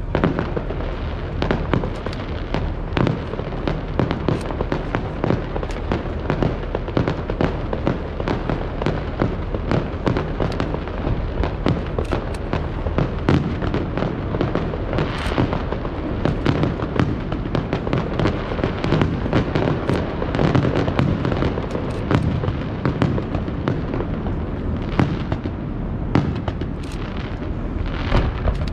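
Fireworks display going off: a dense, continuous crackle of many small bangs and pops, with louder reports scattered among them.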